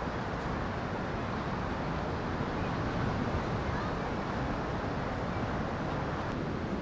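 Steady low rushing noise of wind and sea surf.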